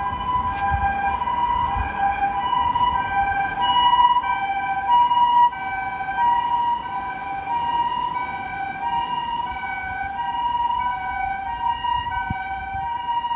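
Japanese emergency vehicle's two-tone hi-lo siren, alternating steadily between two pitches, each held a little over half a second. It is loudest about four to five seconds in and a little quieter after that.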